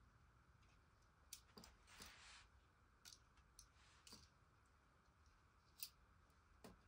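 Faint, scattered clicks of kitchen tongs knocking against a multi-cooker's inner pot and a plate as potatoes are lifted out and served, about eight in all.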